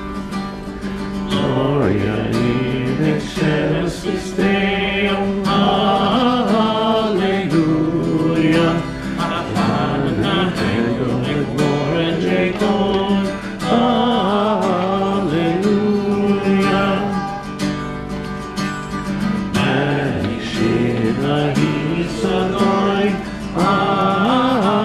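A class of students singing a Christmas song together, with instrumental accompaniment.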